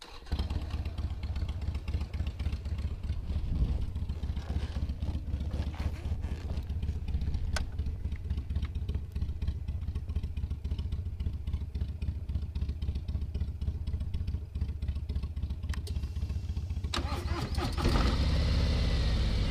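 Harley-Davidson Ultra Limited's Milwaukee-Eight 114 V-twin engine starting abruptly, then running steadily. It grows louder a little before the end.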